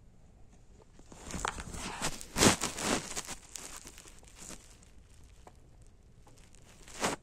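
Rustling and crackling handling noise, loudest about two and a half seconds in, with another brief burst near the end.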